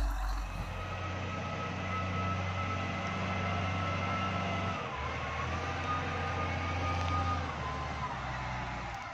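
Wheel loader's diesel engine running under load as it pushes snow, a steady drone with a high whine that dips briefly about five seconds in.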